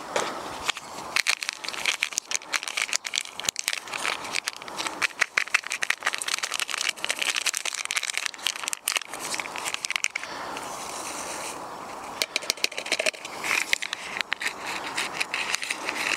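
Wrapper crinkling and crackling as it is peeled and unwrapped by hand, with many small irregular crackles throughout.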